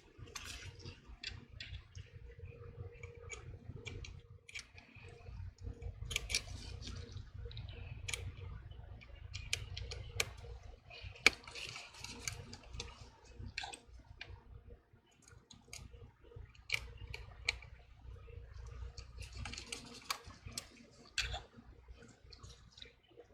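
Scattered small clicks and taps of metal tools and phone parts being handled during repair work on a smartphone, over a low rumble of handling noise, with one sharper click about eleven seconds in.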